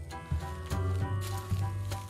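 Background music: held notes over a regular beat.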